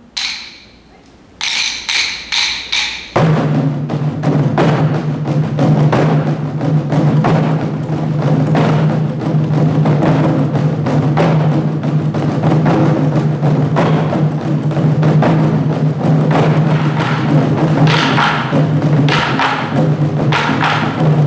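Ensemble of Korean buk barrel drums struck with sticks. After a short pause and a few sharp ringing taps, the drums break into fast, continuous drumming about three seconds in, with a steady low tone beneath.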